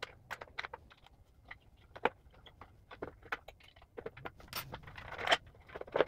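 A 2.5 mm hex key turning in small screws on a 3D printer's auxiliary fan housing, giving scattered light metallic clicks and short scrapes as the screws are backed out and handled.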